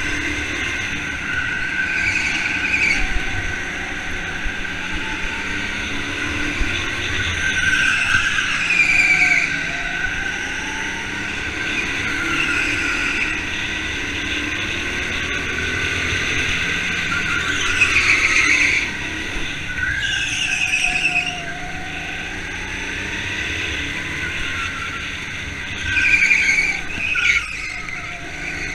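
Indoor go-karts racing: a steady kart engine note, with other karts' pitches rising and falling as they pass. Tyres squeal through the corners several times, loudest about two thirds of the way in and again near the end.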